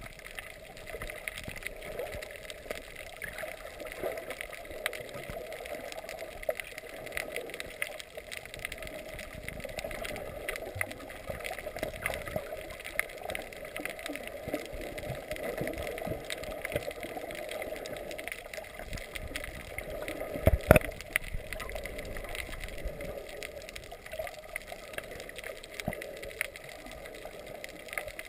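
Muffled underwater noise heard through a GoPro's waterproof housing: a steady water hiss and gurgle with scattered faint clicks. One loud thump about twenty seconds in.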